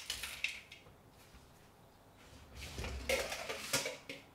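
Pestle and spoon knocking in a mortar as shredded green papaya salad is pounded and turned: a few taps at the start, then a quick cluster of tok-tok knocks from about three seconds in.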